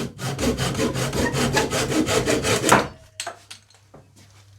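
Hand saw cutting a small piece of wood in quick, even back-and-forth strokes, about eight a second, stopping about three seconds in, followed by a few faint knocks.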